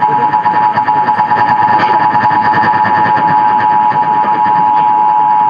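Emergency Alert System attention signal: the steady two-tone alarm (853 and 960 Hz together) held without a break, heard over AM radio with a hiss of static beneath it.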